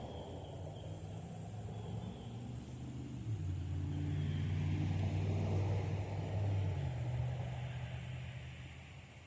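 A motor vehicle's engine passing: a low steady hum that swells about three seconds in, then eases off near the end.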